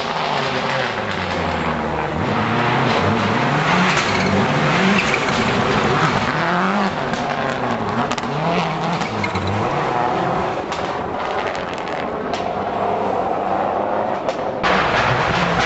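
Rally car engine driven hard on a special stage, its note rising and falling over and over as the driver accelerates and lifts.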